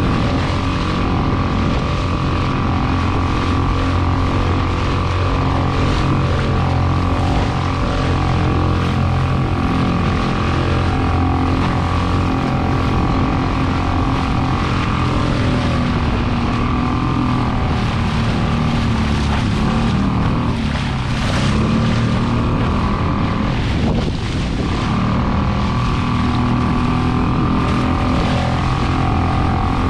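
Boat motor running steadily. Its pitch shifts and dips a few times in the second half before settling back to a steady note.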